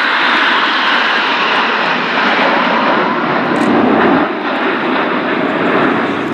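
Nine BAE Hawk T1/T1A jets flying past in close formation, their Rolls-Royce Turbomeca Adour turbofans making a loud, steady rushing jet noise that swells to a peak about four seconds in.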